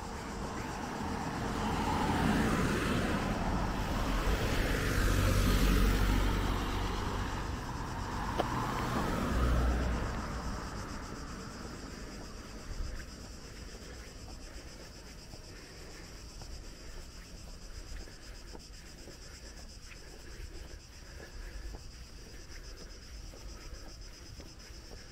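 A road vehicle passes, its engine and tyre noise swelling for about ten seconds and then fading. After it, a steady high chirring of insects remains.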